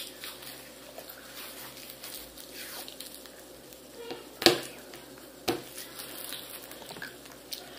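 Hands working at a clear plastic container of foam-bead plasticine, peeling at its wrapper and seal, with light rustling throughout. Two sharp plastic clicks come about a second apart near the middle, the first the loudest.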